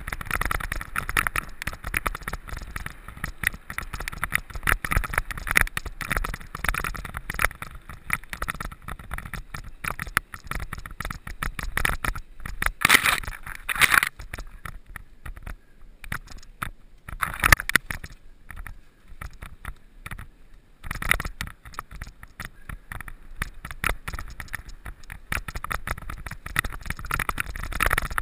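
Mountain bike ridden over rough, stony ground: a constant irregular clatter and rattle as the tyres crunch over gravel and rock, quieter for a few seconds past the middle.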